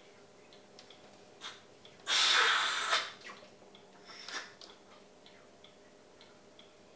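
A single loud, breathy blow of air lasting about a second, about two seconds in: a healer blowing forcefully over a patient's head during a curandera-style cleansing.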